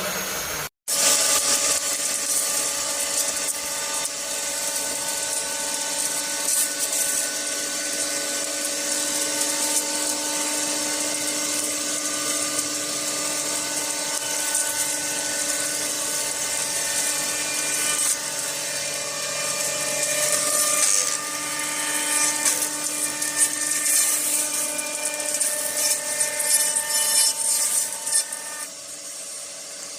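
Woodworking jointer machine running: a steady whine with several tones over a high hiss, becoming rougher and more uneven in the last third. A brief sudden cut to silence under a second in.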